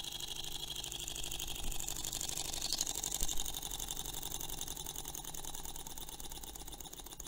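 Small model Stirling engine running with a rapid, even mechanical ticking from its piston linkage and flywheel, fading toward the end as it runs down with its spirit-burner flame taken away.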